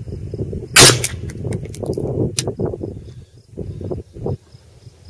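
A single 7.62x39mm AKM rifle shot, very loud, a little under a second in, followed by a few lighter clicks over the next second and a half.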